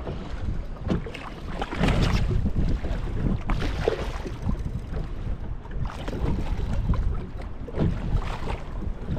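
Wind buffeting the microphone on a boat on the water, a gusty low rumble with irregular short surges and splashy noises.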